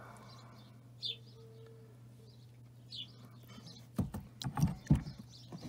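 Rock specimens handled in a shallow pool of water, giving a quick cluster of knocks and clacks from about four seconds in. Two short, faint bird chirps come earlier.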